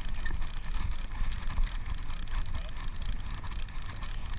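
Steady low rumble aboard a deep-sea fishing boat at sea, with a few faint small ticks.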